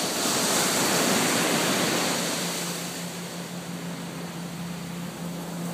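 Ocean surf washing on the shore: a wave swells over the first couple of seconds, then ebbs to a steady wash. A faint steady low hum comes in about halfway through.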